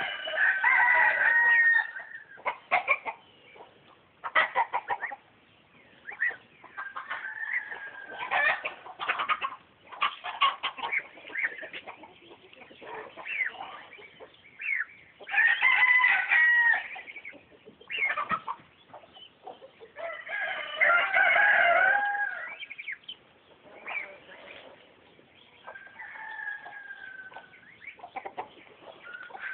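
Farm animals calling: loud drawn-out calls of a second or two each, at the start, around 16 s and around 21 s. Short sharp knocks and quieter calls come in between.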